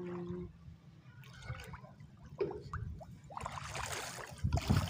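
Floodwater trickling and sloshing, with a louder rush of splashing near the end.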